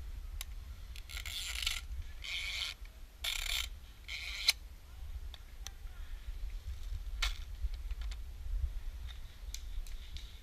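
Four short bursts of airsoft gunfire within the first few seconds, each about half a second long, followed by scattered single clicks and snaps, over a low rumble of handling and wind on the head-mounted camera.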